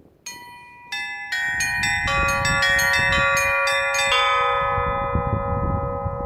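Set of Russian bells cast at Andrei Dyachkov's bell foundry, rung by hand on a portable belfry. The small high bells start a fraction of a second in with quick strikes, a lower bell joins about two seconds in and a deeper one about four seconds in, and all keep ringing together.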